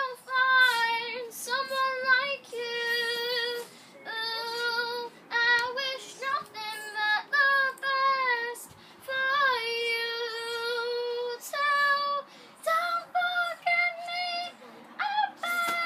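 A child singing a song unaccompanied in a high voice, holding several notes for a second or two between short breaths.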